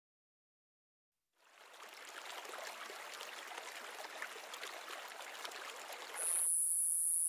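Silence for over a second, then water pouring over a low mossy wall into a shallow pool fades in as a steady splashing. About six seconds in, the water cuts off and a loud, steady high-pitched hiss takes over.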